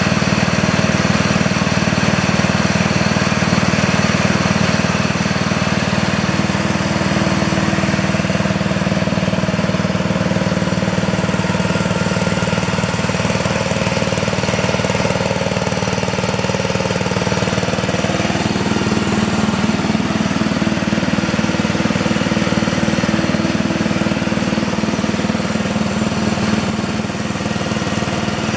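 Single engine of an MTD Lawn Flite 11 HP ride-on lawn tractor running steadily at an even speed, with only a slight waver in pitch partway through.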